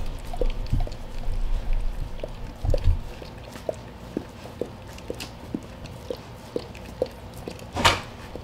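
Cane Corso mother licking her newborn puppy: a steady run of soft, wet licking ticks, about two a second. Near the end comes a short, loud rush of noise.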